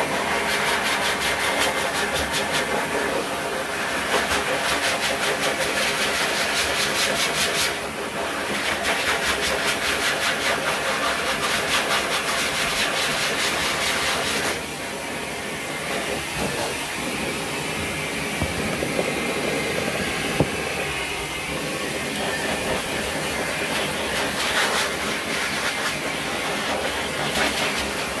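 Pet grooming dryer blowing air over a dog's wet coat: a loud, steady rush of air with a motor hum underneath. Its tone shifts about 8 seconds in, and it drops a little in level about 14 seconds in, as the nozzle is moved over the coat.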